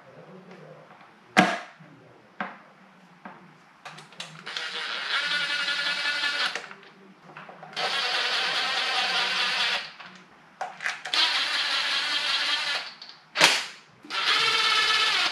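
Cordless power driver running in the new automatic transmission filter's 10 mm bolts: four bursts of about two seconds each with a steady motor whine, with a few sharp clicks of handling between them.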